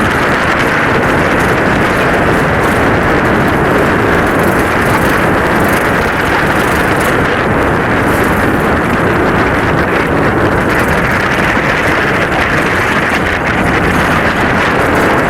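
Loud, steady rushing of wind buffeting the microphone aboard a Hobie Cat 16 catamaran under sail.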